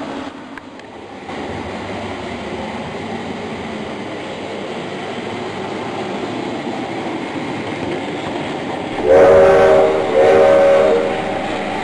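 Model railroad locomotives running on the layout track with a steady rumble, then two blasts of a chime train horn about a second each, near the end.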